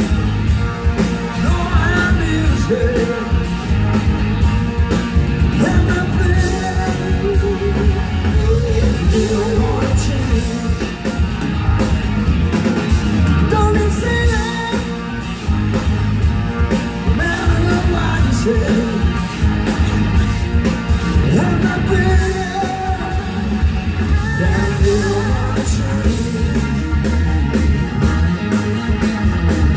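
Live rock band playing loudly: electric guitars, bass, drums and keyboard, with a man singing lead at the microphone.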